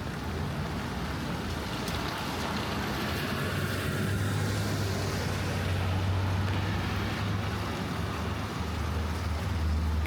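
A car passing on a wet street, its tyre hiss swelling to a peak about five seconds in and then fading, over the steady hiss of light rain.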